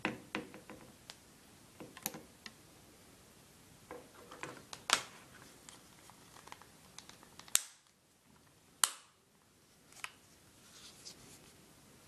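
Hard plastic phone case being handled: scattered small clicks and rubbing, with sharp plastic snaps about 5 s in and twice more, about a second apart, in the second half as the case parts are pressed together.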